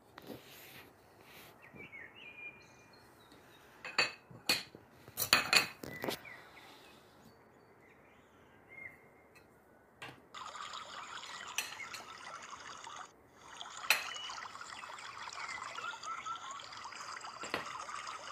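Metal spatula and forks clinking on a baking tray and a ceramic plate, a few sharp clicks in the first seconds. Then tea is poured into a glass, a steady trickle in two pours with a short break between them.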